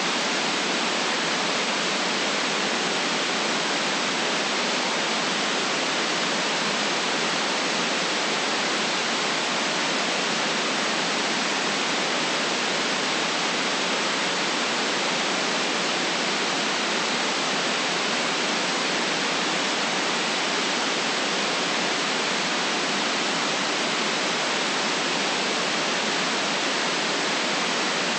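Steady synthetic white noise for sleep: an even hiss with no rhythm or change, cut off below the lowest bass and above the highest treble.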